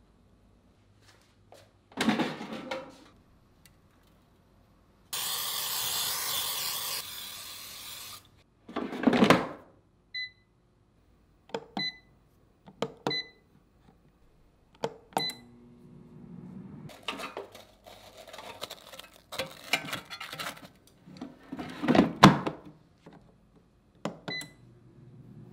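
Food prep around an air fryer: several seconds of steady hiss from a cooking-oil spray, a thump, then a series of short electronic beeps from the air fryer's touch dial as temperature and time are set. Later come rustling and clattering with one loud knock.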